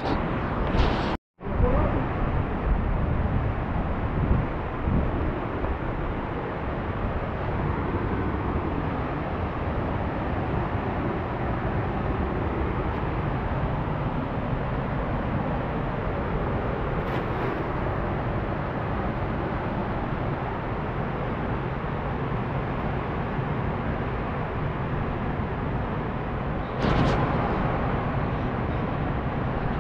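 Fast, muddy river running over rapids: a steady, even rush of water. It cuts out briefly about a second in and grows a little louder near the end.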